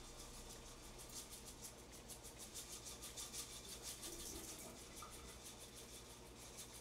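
Sesame seeds being sprinkled from a handheld plastic container over a bowl of noodles: a faint run of quick, even scratchy strokes, several a second, strongest in the middle.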